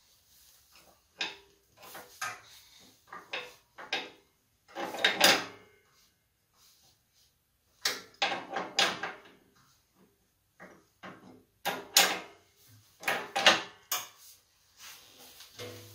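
Irregular metal clanks and rattles as the ATV snowplow's blade linkage and mount are handled to unhook the plow, with a few louder clusters of clatter.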